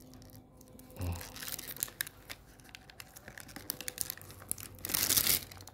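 Security seal on a smartphone's cardboard retail box being picked at and peeled, with small crackles and scratches, then a louder tearing rip near the end.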